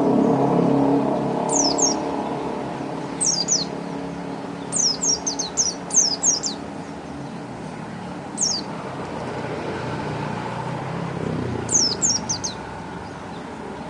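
White-eye (pleci) calling: short, high, falling chirps in twos and threes every second or two, with a quick run of them about five to six seconds in. A low steady rumble sits underneath, strongest at the start.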